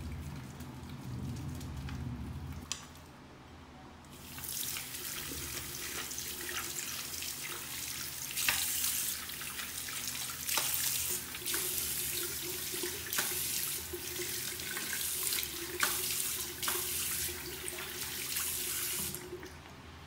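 Bathroom sink faucet running while lathered hands rinse and splash under the stream. It starts about four seconds in and stops shortly before the end.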